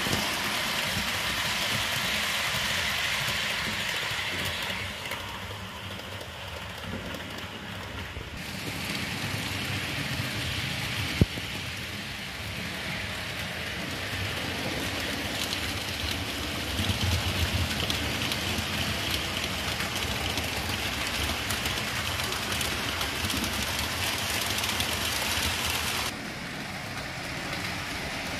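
HO-scale model trains running on the layout's track: a steady rolling hiss and motor whir, which shifts in level abruptly about 8 seconds in and again near the end, with one sharp click a little after 11 seconds.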